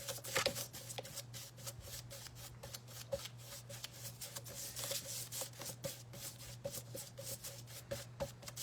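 Paintbrush stroking and scrubbing acrylic paint across a flat canvas artboard, a quick, continuous run of short rubbing strokes over a steady low hum.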